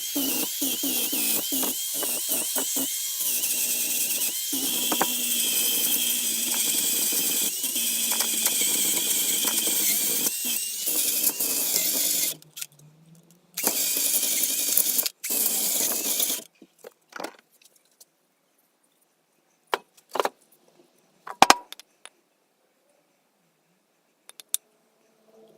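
A small power tool running steadily with a high, wavering whine, typical of grinding or sanding work on an axe head. It stops about twelve seconds in, runs again briefly, then cuts off. A few sharp knocks follow, two of them loud.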